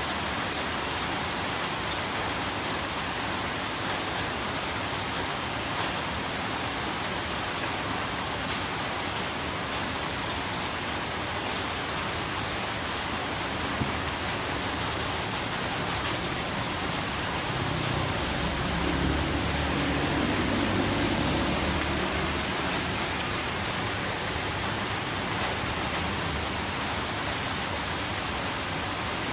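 Steady rain falling on surfaces. About two-thirds of the way through, a low rumble swells for a few seconds and fades away.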